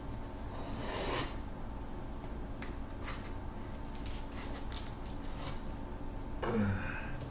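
A knife slitting the tape along the top of a cardboard shipping box: a short scraping tear about a second in, then light clicks and taps as the box is handled. A brief sound with a falling pitch near the end is the loudest moment.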